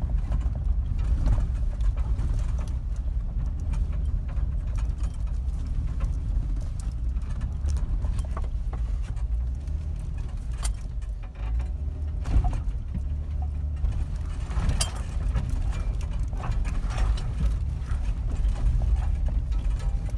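Jeep driving slowly over a rocky dirt trail, heard from inside the cabin: a steady low rumble from the engine and tyres, with scattered clicks and knocks as it rolls over the rocks.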